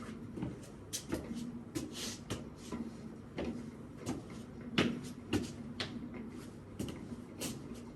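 Irregular light knocks and clicks, like objects being handled and moved, in a small room, over a faint steady low hum.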